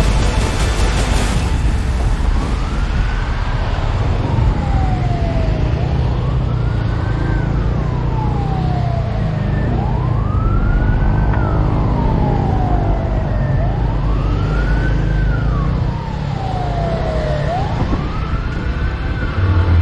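Emergency-vehicle siren wailing, its pitch rising quickly and then falling slowly about every four seconds, over a steady low rumble.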